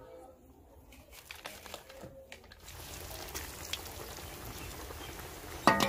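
Potato chips deep-frying in hot oil in an iron karahi. After a few scattered clicks, a steady sizzle sets in about three seconds in. Plucked-string music comes in just before the end.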